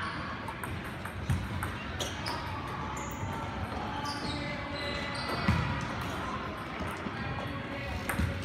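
Table tennis balls clicking against paddles and tables in irregular rallies, with a few louder knocks.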